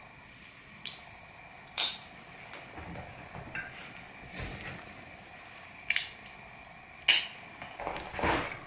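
Folding knives being handled and set down: a few sharp clicks and taps a second or more apart, two of them louder, with soft handling noise between.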